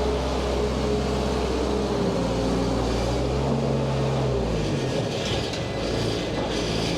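Skid steer engine running steadily, its note dropping about four and a half seconds in and picking back up a second later.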